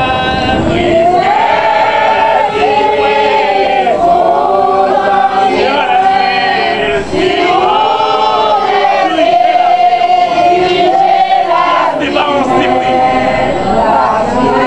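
A congregation of men and women singing a sacred chant together, unaccompanied, with long held notes that glide up and down.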